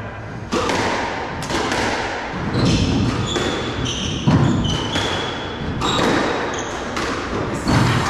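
Squash rally: the ball cracks off rackets and walls about once a second, with rubber-soled shoes squeaking on the wooden court floor between shots.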